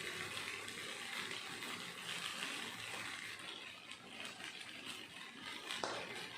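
Crumbled idli frying in oil in a pan, a steady sizzling hiss, with a single sharp knock near the end.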